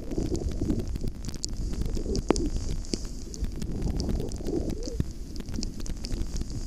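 Skis hissing and scraping over snow on a downhill run, with wind buffeting the microphone in an uneven low rumble and scattered small clicks.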